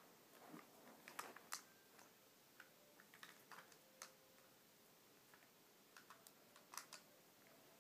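Faint, scattered clicks and taps of small plastic toy car parts being handled.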